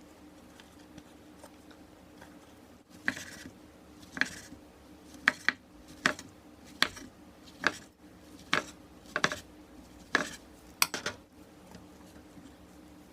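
Utensils clinking against dishes: about ten sharp, separate clinks, roughly one a second, starting about three seconds in. A faint steady low hum lies underneath.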